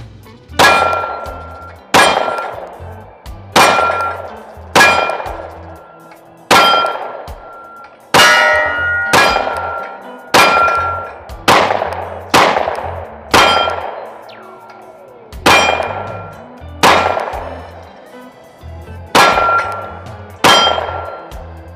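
Glock 43X MOS pistol fired about fifteen times at a slow, uneven pace. Each shot is a sharp crack followed by a metallic ringing that dies away over about a second. A 15-round PSA Dagger Micro magazine is being shot empty without a jam.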